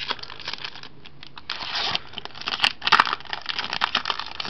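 A Pokémon Plasma Freeze booster pack's foil wrapper being torn open and crinkled: a run of short crackles and rips, loudest from about one and a half to three seconds in.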